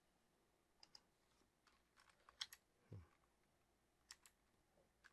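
Faint computer keyboard keystrokes: a short run of scattered key taps as a terminal command is typed, with a soft low thump about three seconds in.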